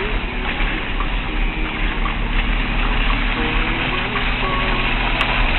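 Steady rushing noise of a vehicle on the move: wind on the microphone and tyre and road noise over a low engine rumble.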